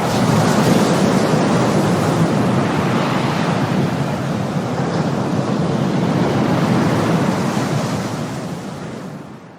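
Ocean surf: waves washing on a shore as a steady rushing wash that fades out near the end.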